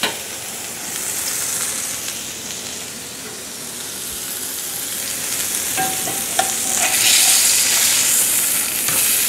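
A hamburger patty frying in oil in a cast-iron skillet makes a steady sizzle. A few short scrapes come about six seconds in, and the sizzle grows louder near the end as a spatula is slid under the patty.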